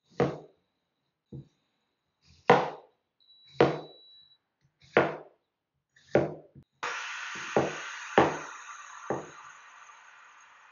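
Kitchen knife chopping through a cucumber onto a bamboo cutting board: sharp knocks roughly once a second, coming quicker in the second half. About two-thirds of the way through a steady hiss comes in and slowly fades under the last chops.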